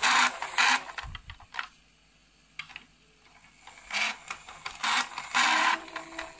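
Plastic toy truck's friction motor whirring as the truck is pushed and rolls across a table. It comes in two bursts, one at the start and one from about four seconds in, with a quiet gap between. The owner says this friction motor tends to slip.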